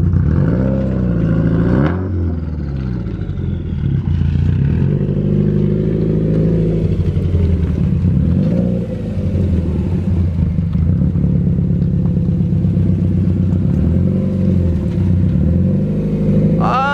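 2020 Subaru WRX STI's turbocharged flat-four engine running at low revs, its pitch rising and falling several times as the lowered car is eased back and forth at walking pace.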